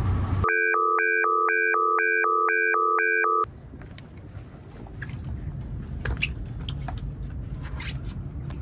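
Electronic alarm beeping in a steady two-tone pattern, about two beeps a second for about three seconds, then cutting off abruptly. After it comes a lower, steady engine rumble with wind hiss and small knocks.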